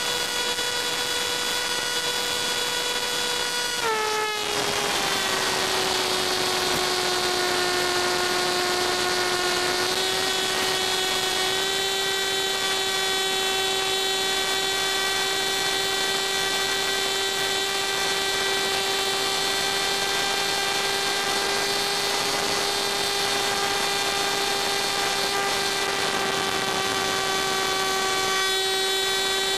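A steady electric whine with a row of high overtones, dropping to a lower pitch about four seconds in and then holding level.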